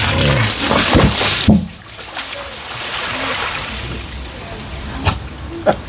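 Water gushing out of a tipped-over polypropylene tank and splashing onto a grass lawn, cutting off about a second and a half in with a thump; then quieter, with a sharp knock near the end.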